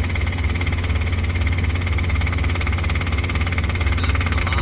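Light helicopter in flight, heard inside the cabin: a steady engine and rotor drone with a strong low hum and a fast, even pulsing from the blades.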